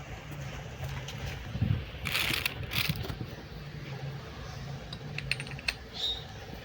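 Light metallic clinks and a couple of short scraping or rustling noises from hand tools and metal parts being handled, with a faint low hum underneath.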